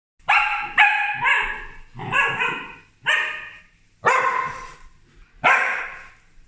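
Corgis barking: about seven sharp, loud barks at uneven intervals, some close together and some with a pause of about a second between them.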